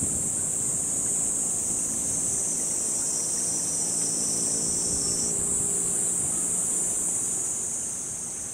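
Steady, high-pitched chorus of insects. A fainter low hum of several steady tones comes in about two seconds in and fades shortly before the end.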